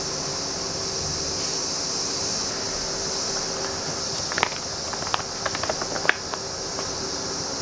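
A paper magazine being picked up and opened: a cluster of short crisp crackles and clicks of the pages between about four and six and a half seconds in, over a steady high hiss.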